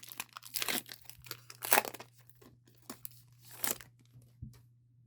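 Pokémon trading card packaging being torn open and crinkled, in several short rips, the loudest about two seconds in and again near four seconds.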